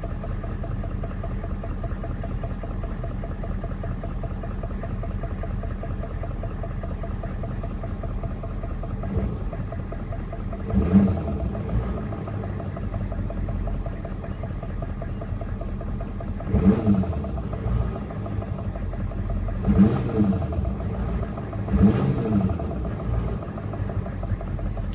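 A 1994 Chevy Silverado's 6.5-litre turbo-diesel V8 idles steadily, blipped up briefly four times in the second half. It carries the knocking noise the owner is trying to track down.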